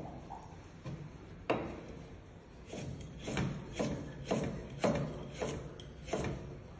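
A knife slicing a raw carrot into rounds on a plastic cutting board. There is a sharp knock about a second and a half in, then a run of about seven knocks roughly every half second from about three seconds in, each as the blade cuts through the carrot and strikes the board.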